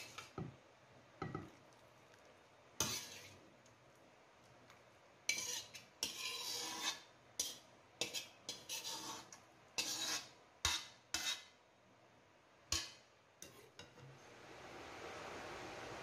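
Metal ladle scraping and knocking against a wok as a coconut-milk stew is tipped and scraped out into a bowl: a run of sharp clinks and short scrapes. A steady hiss takes over near the end.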